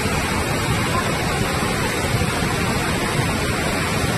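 Steady, loud rushing of the swollen, flooding Beas river, an even roar of fast water with no breaks.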